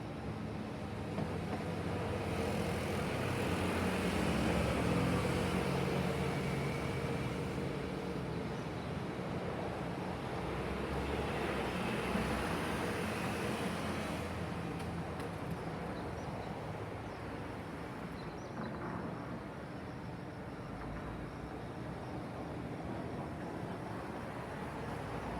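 City traffic ambience: a steady wash of road noise, swelling as vehicles pass a few seconds in and again about halfway through, then easing off.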